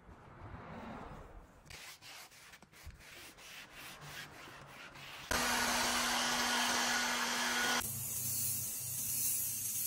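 A foam applicator rubbing over a car tyre's sidewall in repeated strokes. About five seconds in, a loud, steady hiss of a steam cleaner jet starts abruptly and changes character near the eight-second mark.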